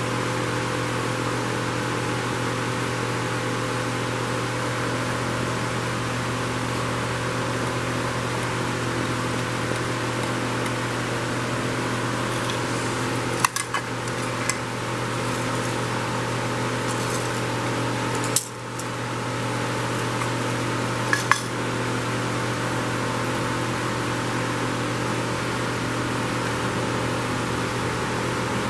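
Steady drone of a shop fan, with a few sharp clicks of small metal carburetor parts being handled on the workbench tray around the middle.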